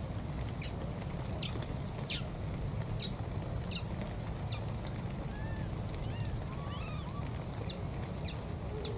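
Outdoor ambience: a steady low rumble with about a dozen short, high chirps scattered through it and a few faint warbling calls in the second half.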